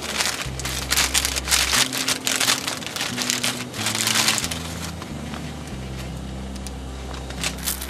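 Plastic instant-ramen packet crinkling and rustling as it is handled and opened, in bursts through the first half, then quieter. Background music with a low bass line plays underneath.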